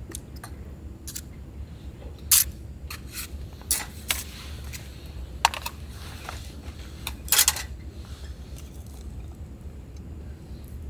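Metal camp cookware and utensils being handled: a handful of sharp clinks and knocks with some scraping, the loudest about two seconds in and again near the end, over a steady low background hum.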